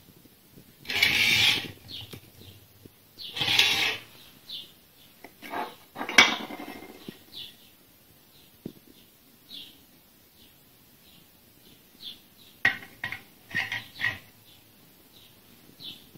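Steel parts of a homemade cutter grinder being handled and set down on a tile floor: clattering scrapes, a sharp knock about six seconds in, and a run of metal clinks near the end. Small birds chirp faintly in the background.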